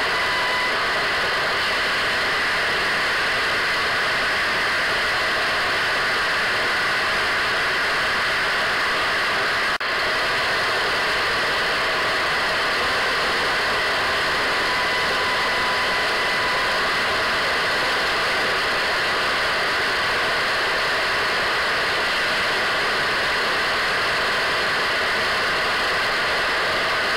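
Steady radio static hiss with faint steady whistle tones in it, broken by a brief click and dip about ten seconds in.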